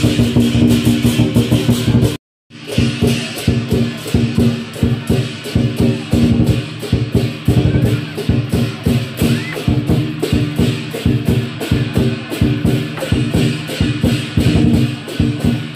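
Lion dance percussion: a drum beaten in rapid, dense strokes with clashing cymbals and a gong. The sound cuts out completely for a moment about two seconds in, then carries on.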